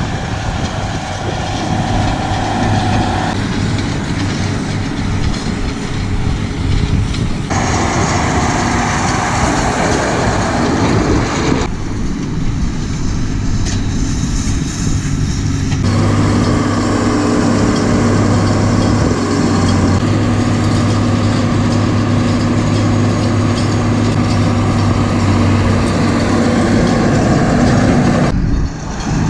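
Farm tractor diesel engines running steadily, one pulling a Claas round baler at work. The sound changes abruptly every few seconds.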